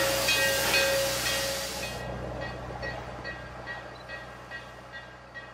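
A locomotive bell ringing steadily, about two and a half strokes a second, over a loud hiss that cuts off about two seconds in. The bell carries on, growing fainter.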